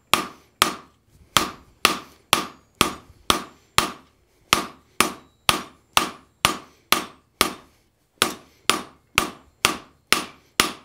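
Hand hammer striking a red-hot steel bar on a steel anvil over the horn, drawing it out to a taper: a steady run of blows about two a second, each with a short ring, with a brief pause near the end.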